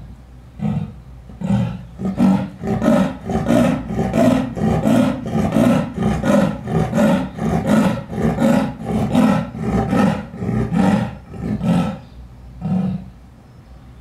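Amur leopard giving its sawing roar: a long train of about thirty hoarse grunts, roughly three a second. The grunts start slowly, run steadily for about ten seconds, and end with a last grunt after a short pause.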